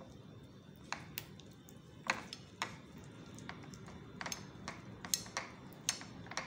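Wooden skewers clicking and tapping against a plate as skewered chicken is turned in beaten egg: a string of light, irregular clicks.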